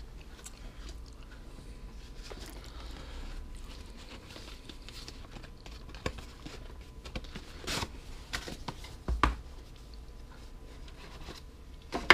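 Phone box and packaging being handled and opened: soft rustling and scraping, with a few sharp knocks near the end.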